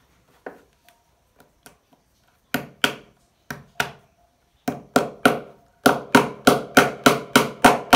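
Pliers used as a hammer, knocking a cable clip into a wooden table top to hold down a motor's power cord. A few separate knocks, then from about halfway a quick run of around three to four knocks a second.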